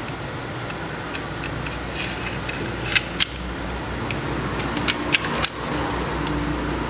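Smith & Wesson M&P9 Shield pistol being handled during reassembly: two sharp clicks of the slide and frame parts about three seconds in, then a quick cluster of clicks around five seconds, over a steady background hum.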